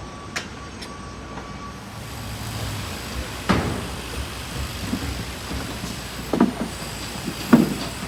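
Outdoor traffic and construction noise: a steady rumble and hiss that swells about two seconds in, with three loud metal clanks, the last near the end.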